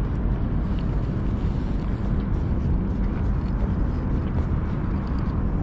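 Steady wind rumble on the microphone, a constant low noise with no break.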